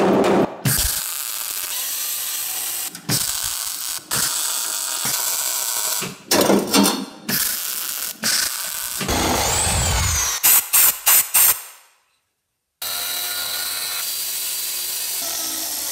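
Sheet-metal body repair tools in quick succession: a power tool hisses with stops and starts, then four short loud bursts come near the middle. After a brief silence, a small cut-off wheel grinds steadily through rusted steel.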